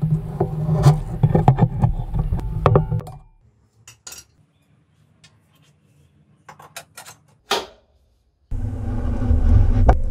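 Metal clanks and knocks of tire-changing work on a motorcycle wheel and a home-built tire changer: a dense run of knocks over a low rumble, then a few separate clicks. Near the end a steady mechanical noise starts.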